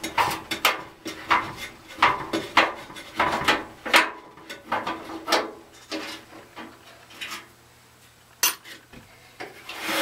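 A screw being backed out of the sheet-metal housing of a Suburban NT-34SP RV furnace: a quick run of metallic scrapes and clicks that thins out after about six seconds, with a single sharp click near the end.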